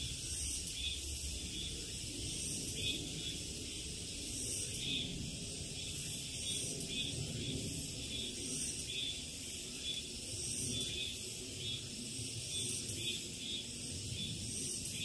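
Summer forest insects singing: a steady, high, shrill buzzing that swells in a pulse about once a second.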